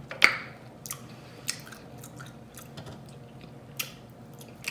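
Close-miked mouth sounds of eating: chewing with sharp wet smacks, the loudest about a quarter second in and a few fainter ones scattered after.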